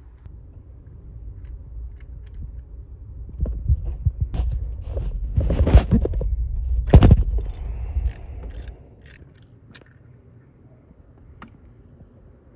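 A 3/8 ratchet on an extension and 5/8 spark plug socket loosening a spark plug from a 4-litre Jeep engine: metal scraping and knocks against the tools, then a run of light ratchet clicks, about three a second, for a couple of seconds.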